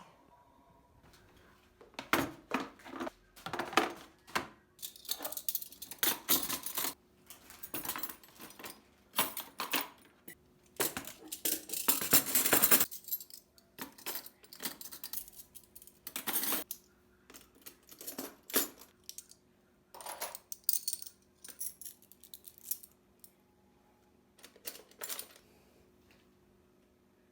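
Small hard household objects clinking and knocking as they are handled and set down, irregular and sometimes in quick clusters, with a couple of longer stretches of rubbing or rattling.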